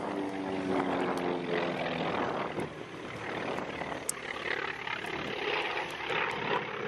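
Propeller aircraft engine droning as a smoke-trailing aerobatic plane flies past, its pitch sinking slightly before it fades about two seconds in. After that there is only a steady rush of wind and outdoor noise.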